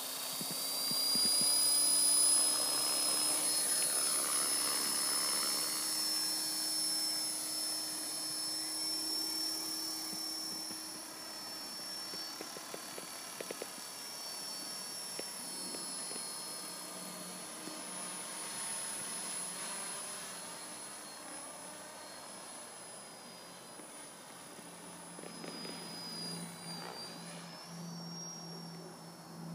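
Thunder Tiger Mini Titan electric RC helicopter flying: a steady high-pitched motor and gear whine with rotor-blade noise. It is loudest a couple of seconds in as it lifts off and climbs, then grows fainter as it flies away high overhead.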